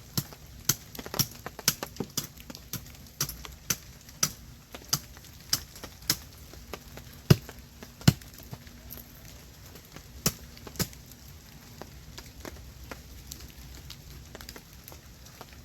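Wood fire crackling, with sharp pops coming irregularly, thickest over the first ten seconds and sparser after, two of the loudest about seven and eight seconds in.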